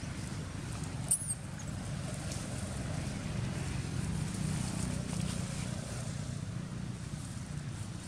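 Steady low outdoor rumble, with a brief high chirp about a second in.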